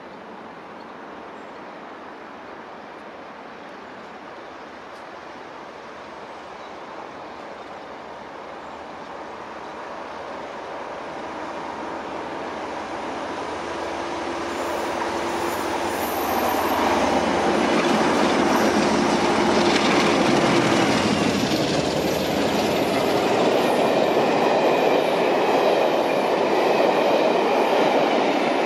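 Railtour train hauled by LMS Black 5 steam locomotive 44871 approaching at speed and passing close by. Its rumble grows steadily louder for about the first seventeen seconds, with a steady tone rising out of it as it draws near. Then comes the loud rush and clatter of wheels on the rails as the train goes by.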